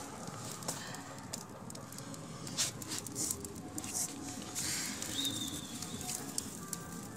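Irregular crackling pops from a wood fire burning in a clay stove under an iron karahi of heating oil, over a low murmur, with a brief high chirp about five seconds in.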